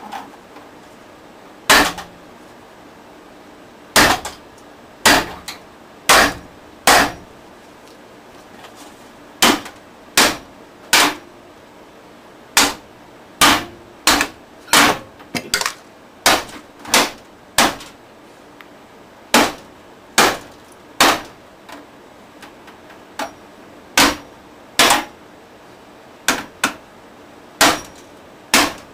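Claw hammer striking a junk stereo over and over: some two dozen sharp blows at irregular intervals, now and then in quick pairs, each with a brief rattling ring.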